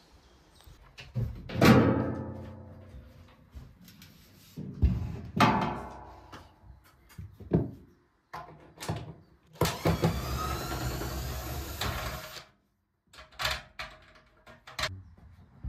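Dishes being handled: two ringing clanks about two and five seconds in, each tone fading slowly. Lighter knocks follow, and past the middle there is a rough scraping noise lasting about three seconds.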